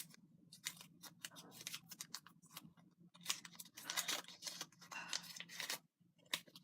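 Small folded paper slip being picked out and unfolded by hand: a run of short, crisp rustles and crinkles, busier from about three seconds in.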